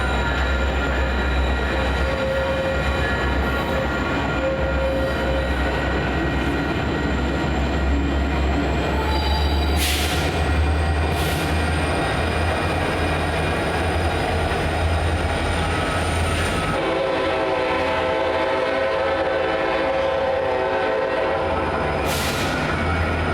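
A train running through a grade crossing with a steady low rumble and a thin, steady high squeal from the wheels. About seventeen seconds in, a train horn sounds for about five seconds.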